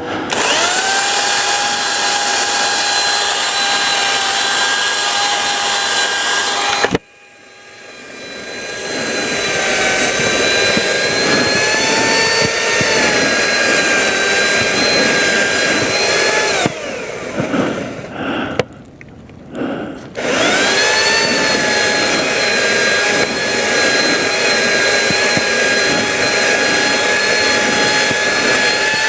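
Power saw, likely a chainsaw, running at steady high speed while cutting maple limbs. It cuts off suddenly about seven seconds in and slowly builds back up, drops out briefly in the second half, then spins up again and runs on.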